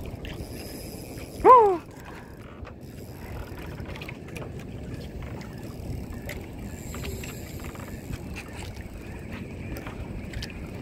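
Drag of a 2000-size spinning reel on PE 0.8 line paying out steadily as a big giant trevally runs, heard as faint ticking and a thin high whine over a steady background rumble. About a second and a half in, a short loud voice-like cry rises and falls in pitch.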